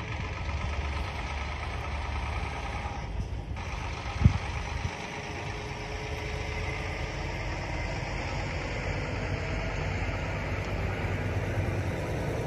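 Kenworth T680 semi-truck's diesel engine idling with a steady low rumble, with one sharp knock about four seconds in.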